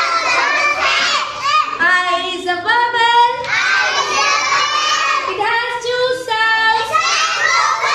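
A group of young children singing and chanting together in a sing-song, holding some notes long, as in drawn-out vowel sounds.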